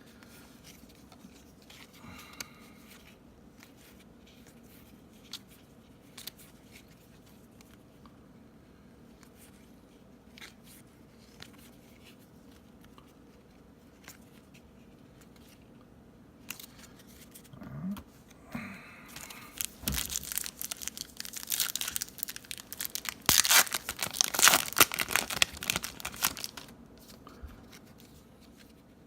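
Foil baseball card pack wrapper being torn open and crinkled: faint scattered handling clicks for much of the time, then a loud stretch of crackly tearing and crinkling in the last third.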